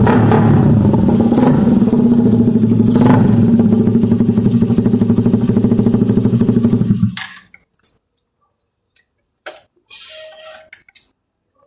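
Motorcycle engine running loud through a round-type Jec Speed Pipe aftermarket exhaust, with two short sharp sounds in the first few seconds, then switched off about seven seconds in. Faint clicks follow.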